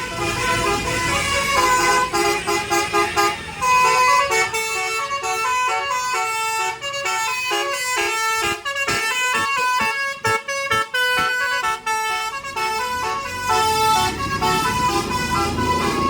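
A bus's 'telolet basuri' musical horn, a multi-trumpet air horn driven by an electronic tune module, playing a fast melody of short stepped notes, choppy and staccato through the middle.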